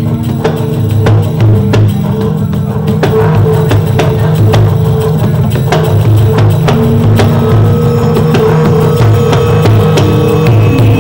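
Gamelan-style metallophone with bamboo tube resonators, struck with two padded mallets, its notes ringing on and overlapping over a low pulsing drone.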